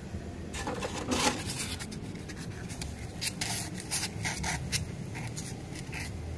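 Styrofoam block squeaking and scratching against the rim and walls of a thin plastic cup as it is pushed down into petrol to dissolve. It comes as a run of short rubbing squeaks, loudest about a second in, with many quicker ones in the second half.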